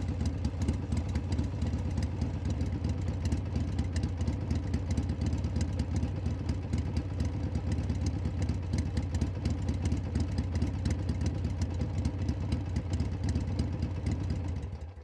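Motorcycle engine idling steadily with a fast, even pulsing, fading out at the very end.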